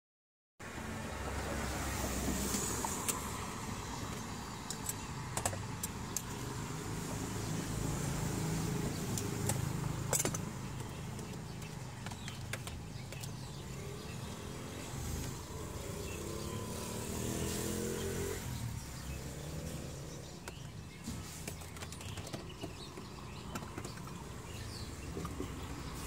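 Steady low rumble of motor traffic. A vehicle engine's note rises for a few seconds past the middle, and a few sharp clicks sound in the first half.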